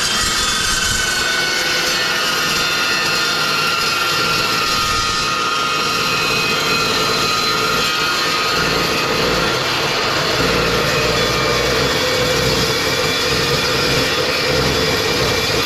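Metal-cutting chop saw running and cutting through thick steel angle iron: a steady, loud whine and grind, with a deeper rumble coming in about halfway through.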